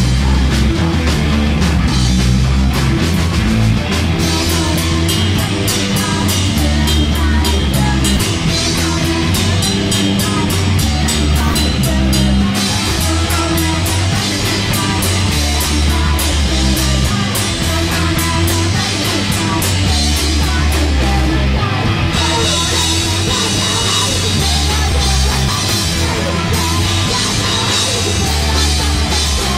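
Live hardcore punk band playing loud and fast: distorted guitar, bass and a drum kit with rapid cymbal hits. About three-quarters of the way through, the cymbals thicken into a steady wash.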